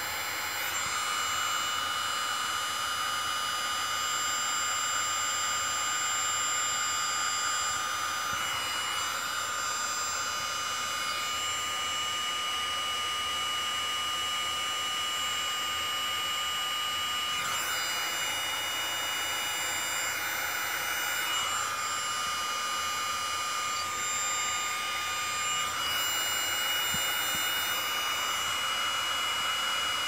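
Electric heat gun running steadily, shrinking the sleeves of marine-grade heat-shrink crimp connectors: a rush of blown air with a high whine on top. The whine drops out and comes back a few times.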